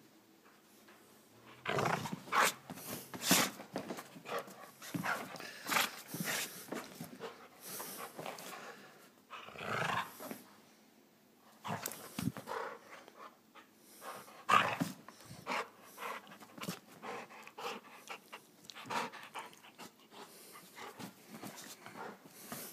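American Staffordshire terrier panting and growling in irregular bursts as it tugs on a rope toy, a play growl rather than aggression.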